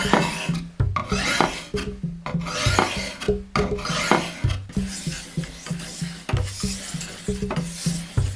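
Repeated rasping strokes, about two a second, as something is rubbed down by hand with an abrasive, over quiet background music.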